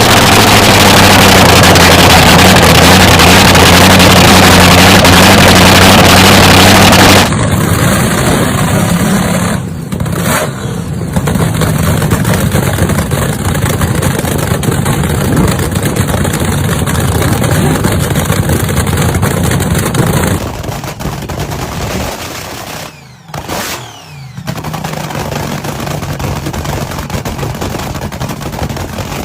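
Nostalgia top fuel dragster's supercharged V8 running, very loud and steady at first, then rougher and quieter with an uneven note. The level changes abruptly about a third of the way in and again in the last third, where it drops out briefly before the engine settles back to a steadier idle.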